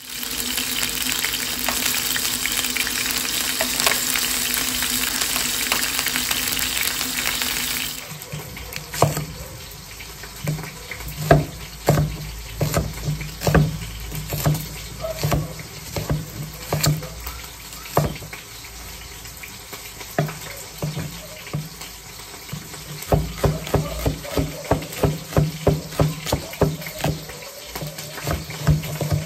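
Meat sizzling in a frying pan for about eight seconds. It cuts abruptly to a kitchen knife chopping a red onion on a wooden cutting board: separate knocks at first, then quick, even chops near the end.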